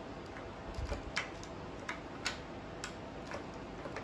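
Light, irregular clicks and taps of plastic parts of a toy spring airsoft rifle being handled and fitted together, about five or six scattered clicks over a faint steady hiss.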